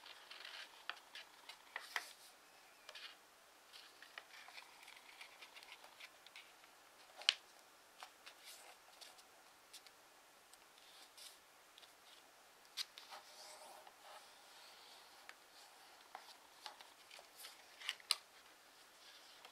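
Origami paper rustling and crinkling as it is folded by hand, with fingers pressing and smoothing the creases flat: a faint string of soft crackles and taps, the sharpest about seven seconds in.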